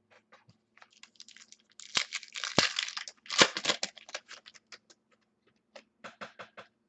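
Foil trading-card pack being torn open and its wrapper crinkled, with a dense crackling stretch about two to four seconds in, then scattered light crinkles and ticks.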